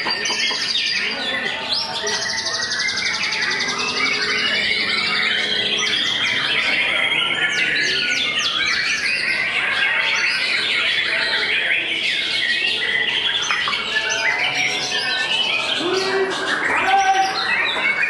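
White-rumped shama (murai batu) singing without pause: a fast, varied run of whistles, trills and chattering notes, with a rapid high trill a couple of seconds in.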